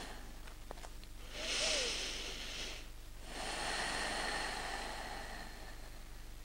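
A person breathing in a forward fold: a soft inhale about a second and a half in, then a longer, slower exhale.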